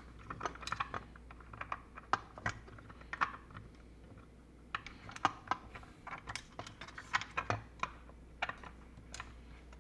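Irregular small clicks and taps of hand-handled small parts as a threaded N-type connector is fitted and screwed into a plastic enclosure.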